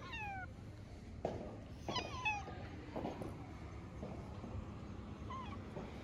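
Orange tabby cat meowing: a falling meow right at the start, a second one about two seconds in, and a short, fainter meow near the end.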